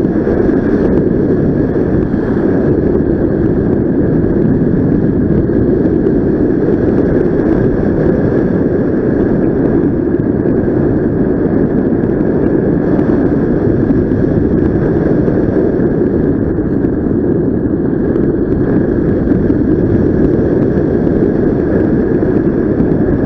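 Wind rushing over the microphone in paraglider flight: a loud, steady rumble, with a faint steady high tone running through it.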